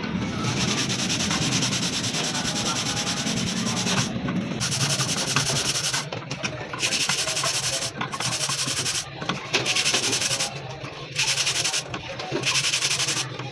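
Hissing spray that starts and stops sharply in repeated bursts every second or two, like a pressure jet washer's trigger being pulled and released while washing an air conditioner.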